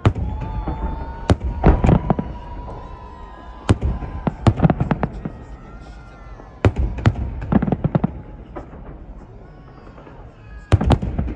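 Celebratory fireworks salute: sharp bangs in clusters every second or two, each with a short echoing tail. A long, steady whistle-like tone runs under the first few seconds.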